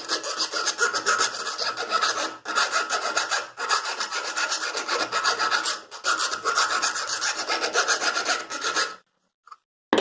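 A 6 mm round file rasping inside the freshly hacksawn end of a curtain-rod pipe, deburring the inner edge: quick repeated strokes with short pauses, stopping about nine seconds in.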